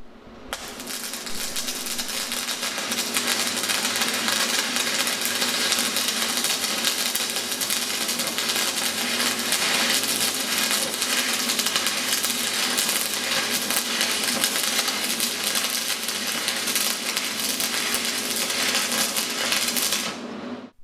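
Stick (MMA) welding arc from a STAHLWERK ARC inverter welder, crackling steadily as the electrode burns, building up over the first couple of seconds after the arc is struck and stopping abruptly near the end as the arc is broken.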